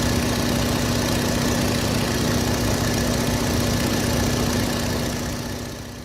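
Stearman biplane's radial engine running steadily in cruise flight, heard from the open cockpit with a steady drone and rushing wind noise. The sound fades out near the end.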